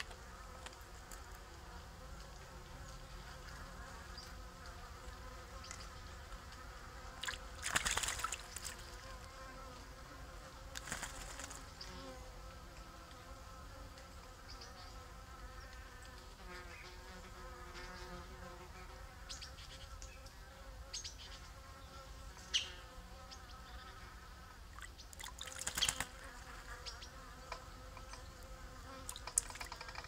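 Eurasian jays splashing as they bathe in a shallow pool: a few short splashes, the loudest about eight seconds in and again late. Under them runs a steady, wavering insect buzz.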